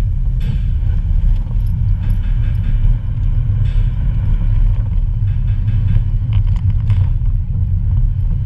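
Audi Coupe GT driving, heard from inside the cabin: a steady low engine and road rumble, with a few light clicks and rattles now and then.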